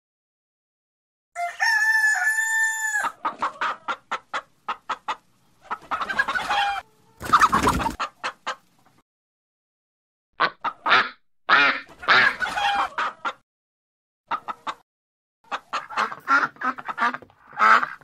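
A flock of chickens calling. About a second and a half in, a rooster crows with one short held note. After that come clusters of clucking with silent gaps between them, and the clucks come quickly and close together near the end.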